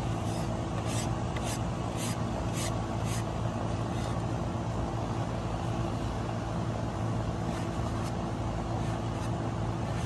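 Short scratchy rubbing strokes, about two a second for the first few seconds, from a sponge paint brush scrubbed on the bare wooden birdhouse. Under them runs a steady low mechanical hum.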